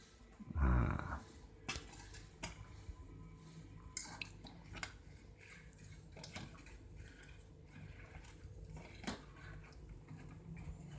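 Scattered light clinks and knocks of kitchen utensils against a cooking pot as boiled soursop leaves are drained, with one louder clank about a second in.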